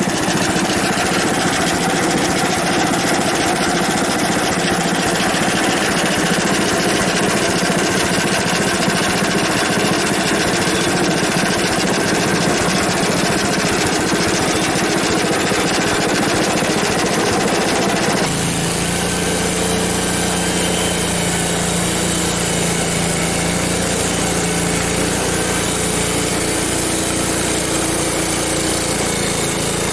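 Frontier OS23 band sawmill running, its engine at speed and its freshly changed blade sawing through a log. The sound is steady, then changes abruptly about 18 seconds in.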